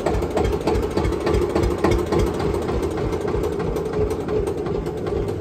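An old tractor's diesel engine idling with an even, rapid knocking beat.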